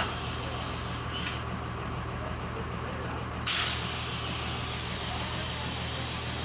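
A steady low engine hum, with a sudden loud hiss of compressed air being released about three and a half seconds in, fading away afterwards.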